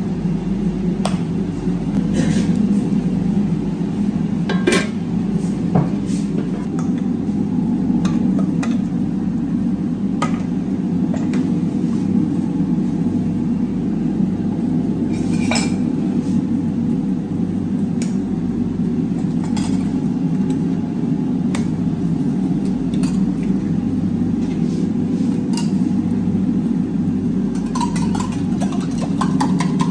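Steady low machine drone, with scattered light clinks of metal bowls and utensils on the counter.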